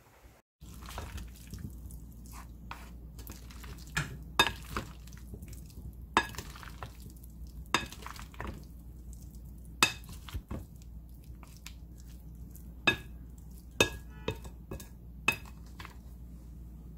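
Wooden spatula stirring mayonnaise-dressed potato salad in a glass bowl, with a dozen or so sharp clinks as it knocks against the glass. A steady low hum runs underneath.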